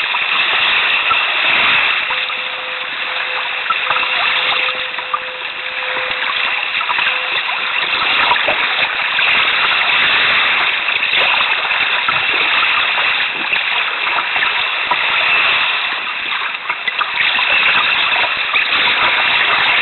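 Sea water splashing and rushing against a canoe as it is paddled through choppy waves, a steady hissing wash with small irregular splashes.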